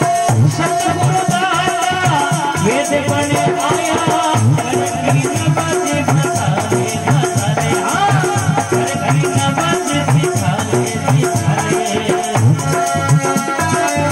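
Rajasthani devotional bhajan music: a harmonium melody over a steady beat of rattling hand percussion and drum.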